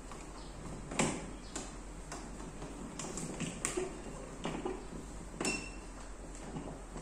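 Aluminium floor plates and bars of an inflatable boat knocking and clinking as they are fitted by hand: scattered light knocks, the loudest about a second in, and one with a short metallic ring about five seconds in.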